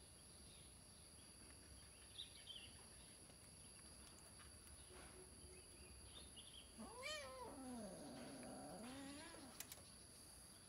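A kitten meowing faintly: one long, wavering meow about two-thirds of the way in, over otherwise near-quiet room tone.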